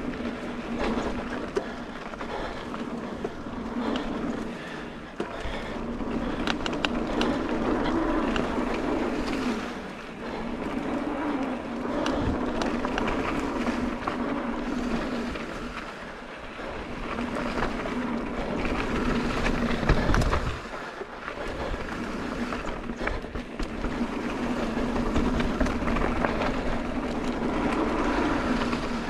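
29er mountain bike rattling down a steep, rutted dirt trail: tyres grinding over dirt and rock, with many knocks and clatters from the bike over bumps and a loud jolt about twenty seconds in.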